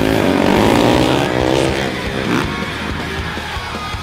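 Racing quad engines revving up and down, rising and falling in pitch in the first second and a half, then running steadier, with rock music underneath.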